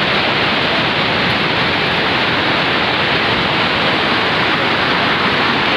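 Water pouring over the Wawa Dam spillway: a steady, loud rushing.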